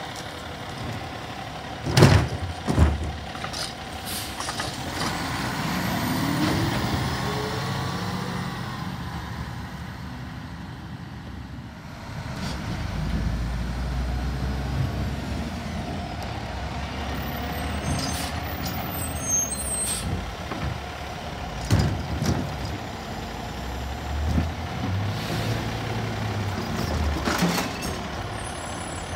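Automated side-loading garbage truck at work: its diesel engine runs and revs as the hydraulic arm lifts and tips wheeled carts, with a rising whine several seconds in. Sharp loud bangs of the cart knocking against the hopper come twice about two seconds in and several times in the second half.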